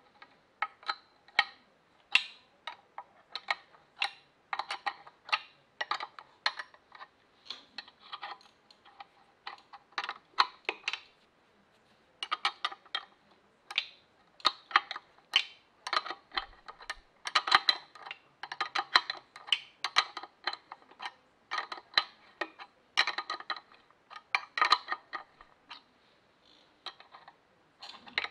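Ratcheting wrench clicking in quick runs of sharp metallic ticks, stroke after stroke with short pauses between, as it turns out the clutch cover plate bolts on a BMW R90S airhead engine.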